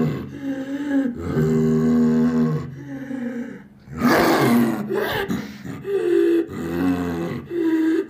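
Cartoon creature roar and growl sound effects: a string of short pitched growls, with a louder, rougher roar about four seconds in.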